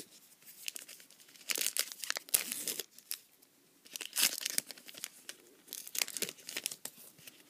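A foil trading-card pack torn open and its wrapper crinkled: several short rustling rips, the longest about one and a half to three seconds in, with smaller ones around four and six seconds in.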